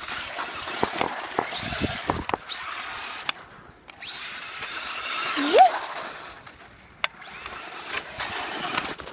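Battery-powered remote-control truck driving in three bursts, its electric motor whining under a haze of tyre and ground noise, with several sharp knocks as it bumps along.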